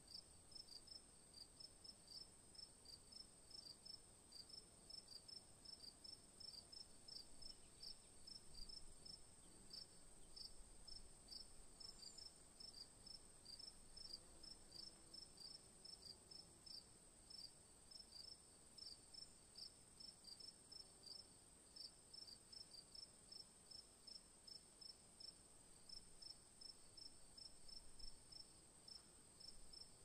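Faint cricket chirping: short high chirps repeating steadily at about two to three a second, over a constant high-pitched whine.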